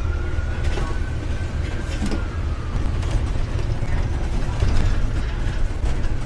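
Double-decker bus in motion, heard from its upper deck: a steady low engine and road rumble with scattered rattling and creaking clicks from the bodywork. A faint thin whine rises and falls over the first few seconds.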